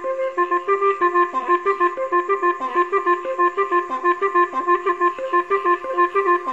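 Background music: a quick, lively melody played on a woodwind instrument, several notes a second.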